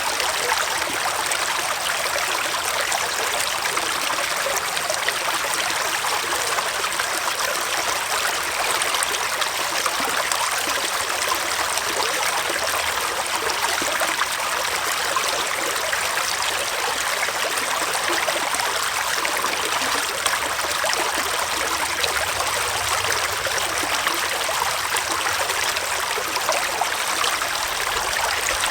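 Small forest stream flowing and splashing, a steady rush of running water.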